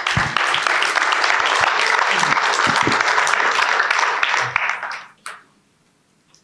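Audience applauding, a dense clapping that starts at once and dies away about five seconds in.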